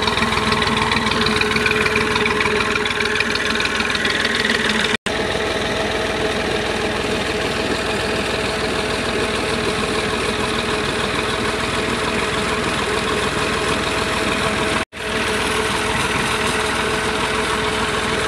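Massey Ferguson 240 tractor's three-cylinder diesel running steadily under load, driving a PTO water pump, with water gushing from the pump's outlet pipe. The sound cuts out for an instant twice.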